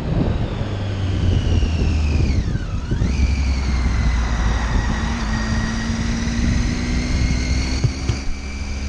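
Triumph Tiger 800 XRx motorcycle's inline three-cylinder engine running on the move. Its note falls for a couple of seconds as the bike slows into the roundabout, picks up sharply again about three seconds in, then holds roughly steady, over a rush of wind and road noise.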